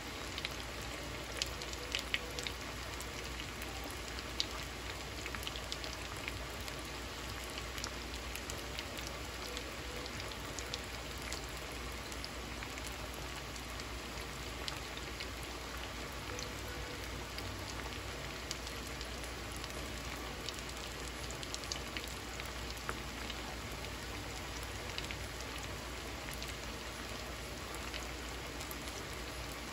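Potato sticks frying in a skillet of foaming oil: a steady sizzling hiss with many small scattered pops and crackles, the moisture still boiling out of the pale, barely cooked potatoes.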